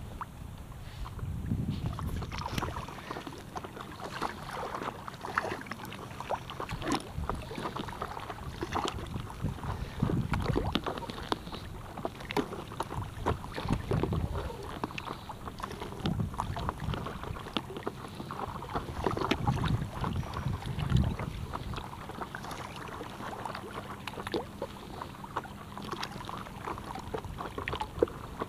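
Double-bladed kayak paddle stroking through river water beside an inflatable paddleboard, with repeated irregular splashes and drips as the blades dip and lift.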